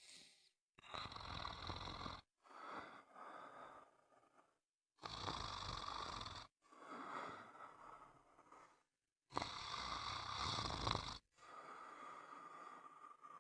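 Snoring in a steady breathing rhythm: three breaths about four seconds apart, each a louder rasping snore followed by a softer one.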